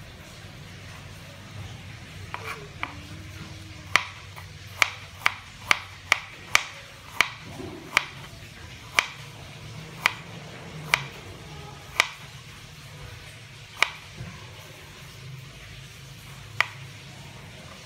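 Kitchen knife slicing fresh ginger on a plastic cutting board: a series of sharp knocks as the blade strikes the board, about sixteen in all, quickest in a run from about four to seven seconds in, with a low steady hum underneath.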